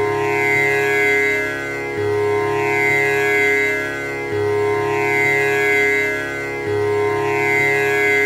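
Tanpura drone: its strings are plucked in a steady repeating cycle of about two and a half seconds, each pluck ringing on into the next. The result is a continuous buzzing hum, rich in overtones.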